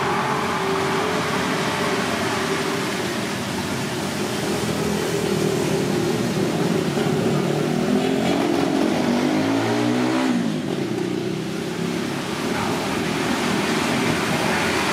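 Street traffic with a motor vehicle engine running. About eight seconds in, a vehicle passes and its engine pitch drops as it goes by.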